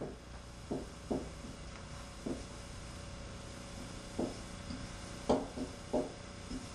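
Marker rubbing on a whiteboard as a word is written: about six short, separate strokes, over a faint steady hum.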